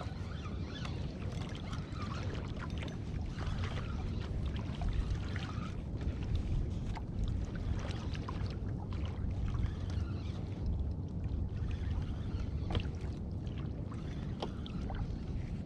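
Water lapping and sloshing against a fishing kayak's hull, with a steady low rumble and scattered small splashes and ticks.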